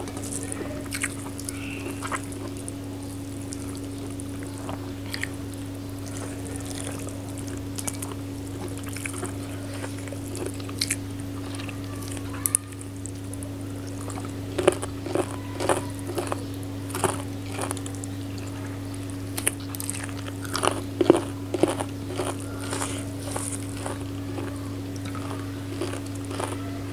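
Eating sounds: wet chewing, lip smacks and mouth clicks from someone eating chicken curry and rice by hand, coming more often in the second half, over a steady low hum.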